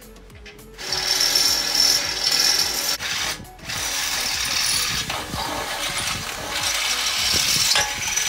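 Cordless drill boring a 3/8-inch hole up through a steel bumper, starting about a second in, stopping briefly a little after three seconds, then running on again.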